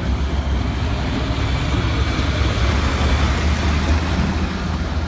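Fire engine driving past close by: a steady low engine rumble with tyre noise on cobblestones, swelling slightly as it passes.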